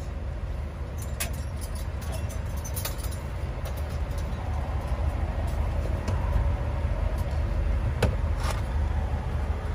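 Steady low rumble of an idling vehicle engine, with a few short sharp clicks of metal on metal.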